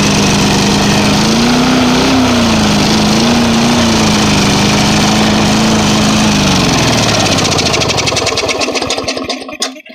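Small gasoline lawnmower engine running steadily, its speed rising and dipping slightly, then winding down and stopping as it is shut off near the end.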